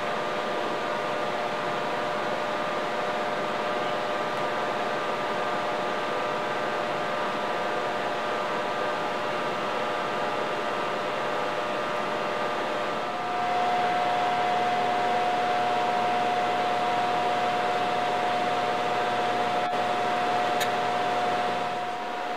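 Steady mechanical hum with a constant whine riding on it, like a running fan or appliance motor. It gets louder, and the whine stronger, a little past halfway through.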